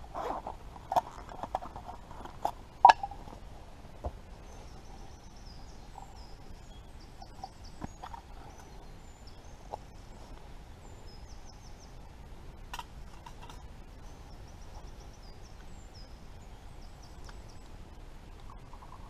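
A few sharp metallic clinks and knocks from handling a folding steel box stove and its gear in the first few seconds. After that, high repeated chirps of a small songbird run faintly in the background for most of the rest.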